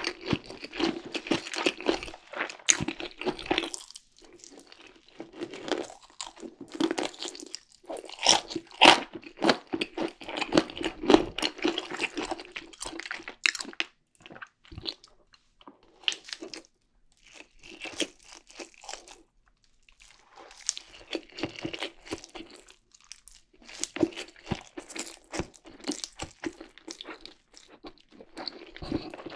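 Close-miked eating: crunchy bites and chewing of crispy fried chicken, then chewing of Indomie Mi Goreng fried noodles. It comes in bursts of crackly crunching with short pauses between mouthfuls.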